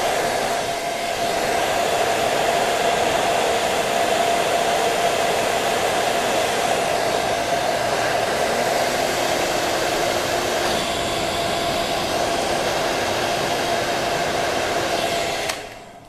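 Hair dryer running steadily with a steady hum tone through its rush of air, blowing on a laptop's brushless blower fan to spin it; it is switched off suddenly near the end.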